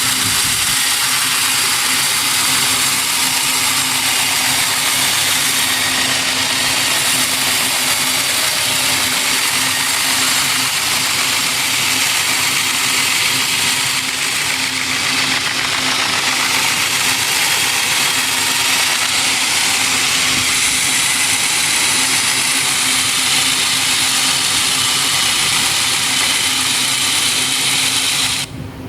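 Sawmill machinery running steadily: a constant hum under a strong, even hiss, dropping out briefly near the end.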